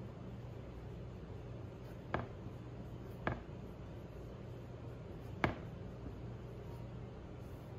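A pen tapping down on the writing surface during quiet handwriting: three short sharp ticks, the second about a second after the first and the third about two seconds later, over a steady low hum.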